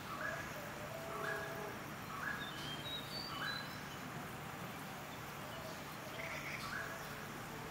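A bird repeating a short call with a quick upward step in pitch, about once a second for a few calls, then again once after a pause. A few fainter, higher chirps come between them, over a steady low background hum.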